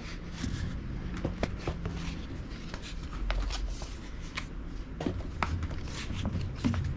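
Scattered rustles and light taps of a new Continental Gatorskin bicycle tire being handled and flexed.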